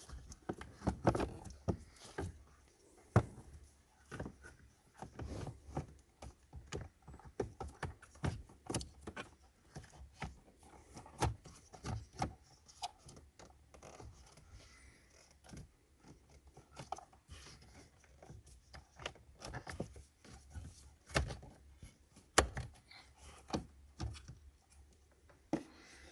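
Hands handling the plastic air filter housing and filter: irregular clicks, taps, knocks and scrapes, with a few sharper knocks just after the start and around the middle.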